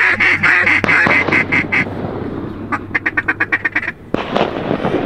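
Duck quacking in two fast runs of short notes with a brief gap between them. It cuts off about four seconds in and a rough noise follows.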